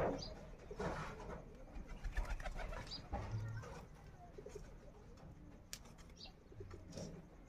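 A large hand-held blade scraping and cutting a goat leg in short rough strokes, loudest in the first three seconds, with a bird cooing now and then.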